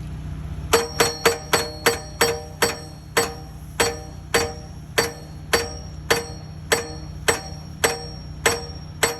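Hydraulic post driver on a Kubota SVL75-2 track loader hammering a steel pipe fence post into the ground. The blows are sharp metal-on-metal strikes, each leaving the pipe ringing like a bell; they start about a second in, come rapidly at first, then settle to a little under two a second. Under them is the steady hum of the loader's diesel engine.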